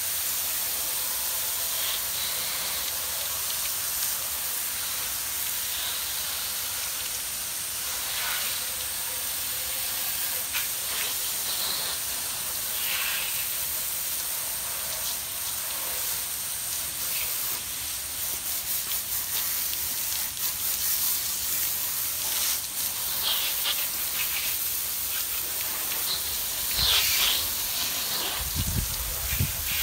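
Pressure washer jet spraying with a steady hiss, blasting grime off a wood-framed screen and the wet asphalt around it. A few low thumps come near the end.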